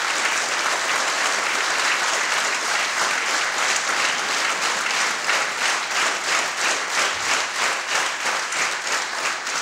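Audience applause in a church. Halfway through, it settles into rhythmic clapping in unison at about three claps a second.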